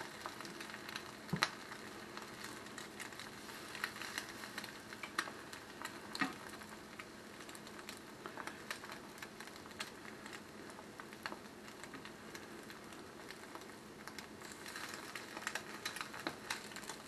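A fried egg sizzling faintly in a nonstick skillet, with scattered small pops and a few sharp clicks of the spatula against the pan.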